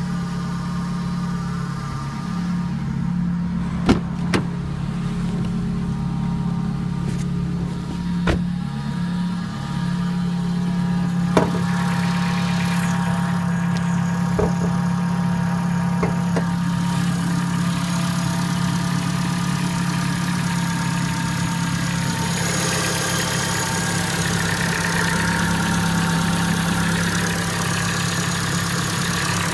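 Renault Clio 197's 2.0-litre four-cylinder petrol engine running just after start-up, with an odd noise that the owner calls awful and cannot identify. Its tone wavers for the first ten seconds or so, then settles, with a few sharp clicks along the way.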